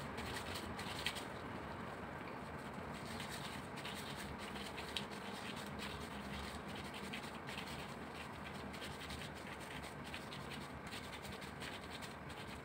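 Gloved hands scooping and rolling minced meat into balls: faint, irregular scratchy rubbing and crackling of plastic gloves against the sticky mince.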